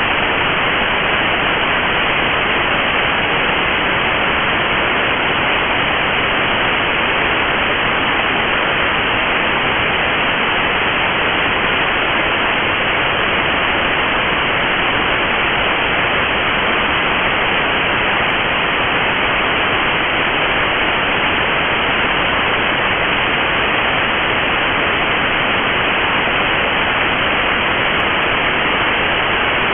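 Steady, loud radio static hiss from a NOAA Weather Radio receiver picking up no signal: the station's transmitter is off the air.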